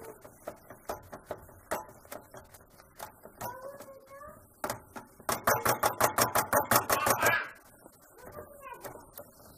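Metal potato masher tapping and scraping against the bottom of a nonstick pan as it mashes cooked apple and beetroot, in scattered clicks, then a fast run of about six or seven strikes a second a little past halfway.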